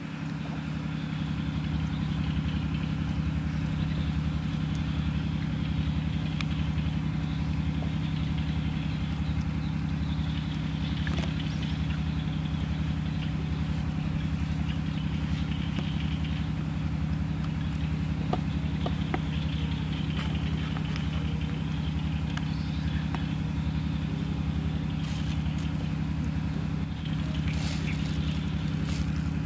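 A motor running steadily, a constant low hum with a faint regular pulse, with occasional light clicks and rustles.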